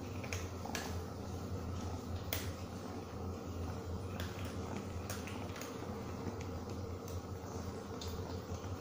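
Soft scattered clicks and rustles of a kitten being play-wrestled by hand, over a steady low hum.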